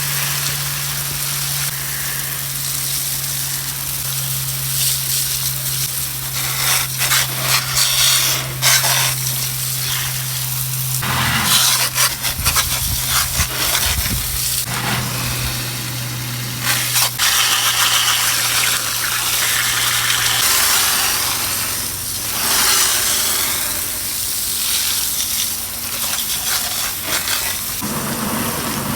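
Garden hose spray gun jetting water onto a car's alloy wheel and tyre in a final rinse, a spray hiss and splash that swells and fades as the jet is moved around. A steady low hum runs under it and stops about two-thirds of the way through.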